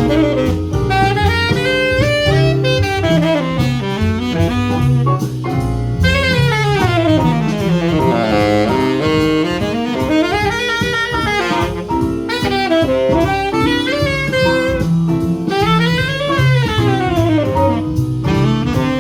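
Jazz saxophone improvising, playing fast runs that sweep up and down, over a stepping bass line.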